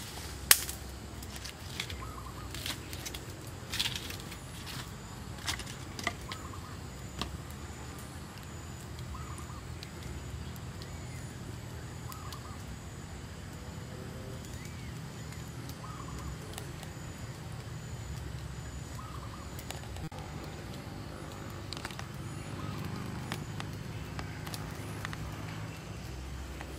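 Small wood cooking fire crackling. A sharp pop comes about half a second in, and several more pops follow over the next few seconds. Under it runs a steady low background, with faint short bird chirps now and then.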